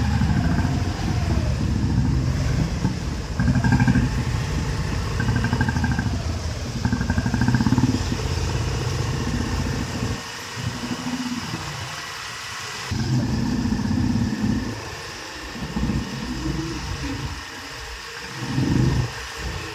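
Engines of a group of motorcycles, among them a Royal Enfield Bullet, riding along a street. The engine noise swells and dips with the throttle and eases off for a moment about halfway through.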